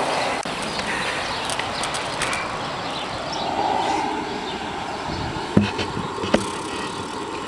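Steady outdoor background noise, with two sharp knocks about a second apart near the end.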